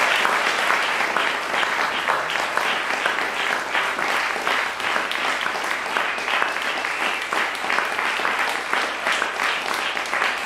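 Audience applauding steadily: many hands clapping at once, a dense patter of claps.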